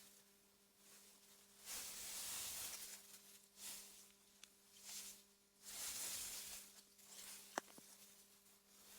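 Wind rustling through meadow grass in soft gusts that swell and die away several times, over a faint steady low hum. A single sharp click sounds near the end.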